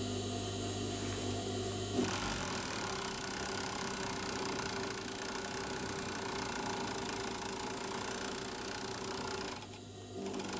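Industrial overlock (serger) sewing machine running steadily as it stitches a seam through layers of fabric. About two seconds in it engages with a short clunk, and near the end it briefly slows before running again.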